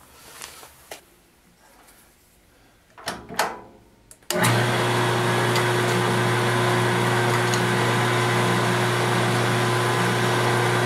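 A couple of light knocks, then about four seconds in the milling machine's motor switches on and the spindle runs steadily with a low hum and a steady whine, the milling cutter turning freely just above the aluminium plate before it is touched down for a cut.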